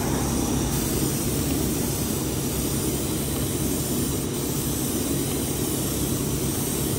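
Spray gun hissing steadily as compressed air atomises a coat of off-white paint onto a motorcycle fuel tank.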